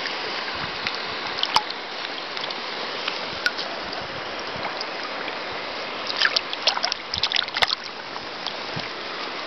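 Steady rush of a flowing river close to the microphone, with a quick flurry of small splashes about six seconds in as a trout held in the shallows is released and swims off.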